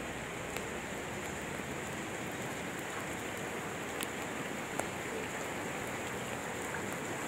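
Steady rain falling on a wet asphalt street and puddles, an even hiss with a few sharper drop ticks.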